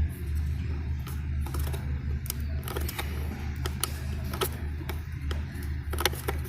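Scattered clicks and scrapes as a vehicle power outlet socket is pried and pulled out of its housing, its retaining tabs released, over a steady low hum.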